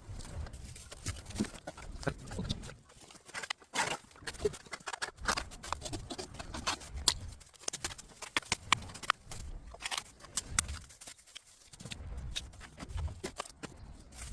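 Cut bamboo branches and leafy tops being handled and dragged into a pile: irregular rustling and crackling of bamboo leaves with scattered knocks of the stems.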